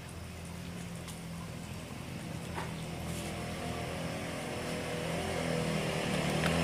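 A motor vehicle's engine running at a steady pitch and growing steadily louder as it approaches.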